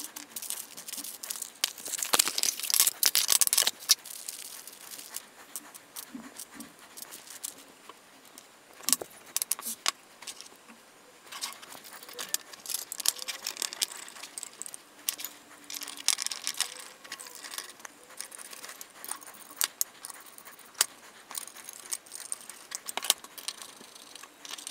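Small metal screws clinking and rattling as they are picked from a pile on a wooden table and fitted into the Prusa i3 MK3's aluminium frame plates and extrusions, with scattered sharp clicks and a burst of handling noise a few seconds in.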